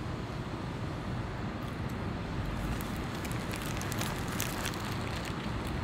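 Steady low rumble of road-vehicle noise, with a patch of light crackling about two seconds in that lasts a few seconds.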